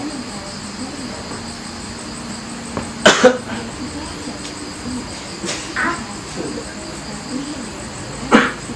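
A man coughing harshly in a staged fit, faking a coughing-up-blood attack: two loud coughs about three seconds in, softer ones a few seconds later, and a loud cough near the end. Crickets chirr steadily underneath.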